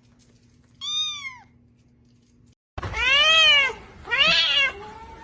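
Cats meowing: one short, high meow about a second in, then two louder, longer and lower-pitched meows in quick succession.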